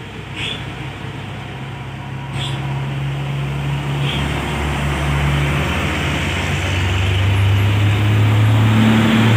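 Diesel engines of two heavy box trucks, a Hino Ranger and then a Mitsubishi, running as they come down a hairpin bend, getting steadily louder as they draw near. A few short high squeaks in the first few seconds.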